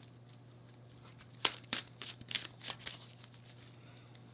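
A tarot deck being handled and shuffled by hand: a run of crisp, papery card snaps starting about a second and a half in, over a faint steady hum.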